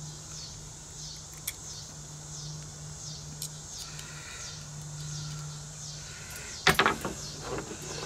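Metal wire basket frame clattering briefly against a plywood board as it is set down near the end, over a steady low hum and faint repeated high chirps.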